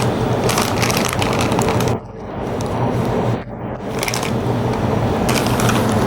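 RC hydraulic excavator's electric pump and hydraulics running under load with a steady hum and crackly hiss, dropping off briefly twice and building back up as the controls are worked.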